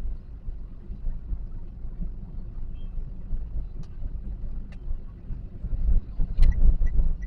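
Toyota Calya's 1.2-litre engine and road noise rumbling inside the moving car's cabin, with a few sharp clicks, and near the end an even ticking about three times a second.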